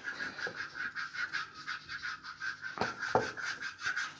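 Rapid, rhythmic scratching of a hand-held foot scrubber worked back and forth over the sole of a wet foot, several strokes a second, over a steady faint high hum.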